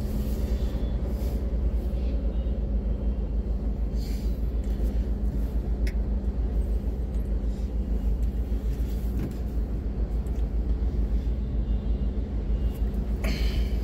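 Idling car engine and surrounding motorbike and auto-rickshaw traffic heard from inside the car's cabin while stopped in a jam: a steady low rumble with a faint steady hum. A couple of faint clicks come about four and six seconds in.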